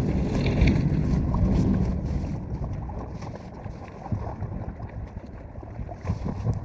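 Wind buffeting the microphone, a rough low rumble that is strongest for the first couple of seconds and then eases off.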